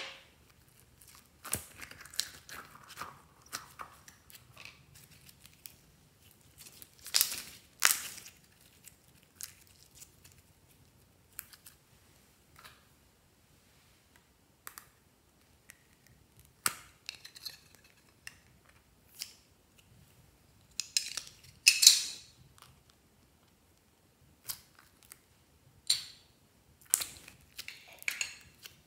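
Hand-handling sounds of small plastic toys and slime: scattered short clicks, crinkles and soft squishes, with quiet gaps between. The loudest come in two clusters, about seven seconds in and again around twenty-one seconds in.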